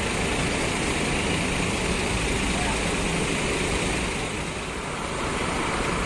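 Busy bus terminal ambience: a steady rumble of buses and traffic with people's voices in the background.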